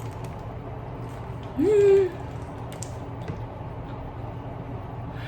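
A woman's short hummed "mmm" of enjoyment while eating, rising in pitch and then held for about half a second, about one and a half seconds in. A steady low hum and a few faint clicks run underneath.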